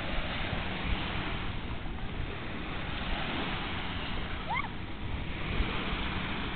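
Wind buffeting the microphone over the steady wash of small lake waves on a sandy shore, with a short high rising squeak about four and a half seconds in.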